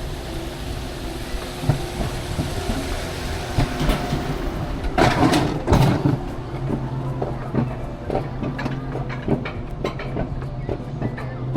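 Alpine mountain coaster cart running along its steel rail track: a steady low mechanical hum with rattling, rail-like clicking that turns into a rapid run of regular clicks in the second half. A loud rushing burst comes about five seconds in.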